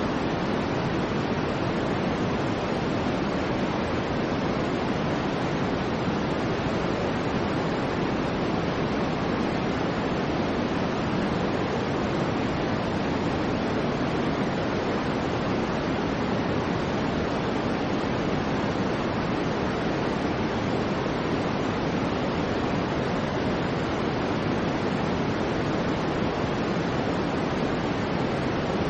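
Soft white noise: a steady, unchanging hiss, fuller in the lows than the highs.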